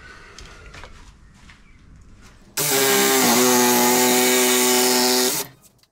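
A handheld cordless power tool is triggered and runs with no load for nearly three seconds, a steady motor whine over a strong hiss that settles slightly lower in pitch just after it starts, then stops sharply when the trigger is released. Before it there are faint handling sounds.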